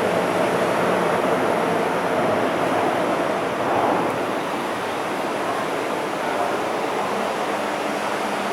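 MTR M-Train electric multiple unit running through a station platform without stopping: a steady rumble of wheels on rail with a faint motor hum.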